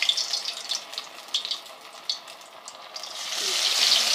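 Potato pinwheel samosas sizzling and crackling in hot ghee in a pan. The sizzle eases off for a moment, then swells again near the end.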